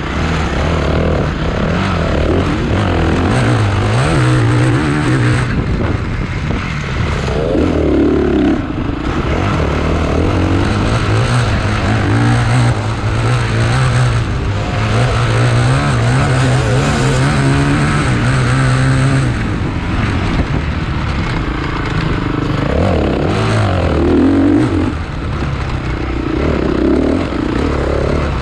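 Motocross dirt bike engines racing, revving up and down.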